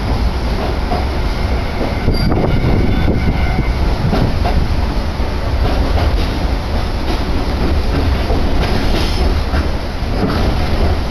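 Cabin noise of a Konan Railway electric train under way: a steady rumble from the running gear, with scattered clacks of the wheels over rail joints.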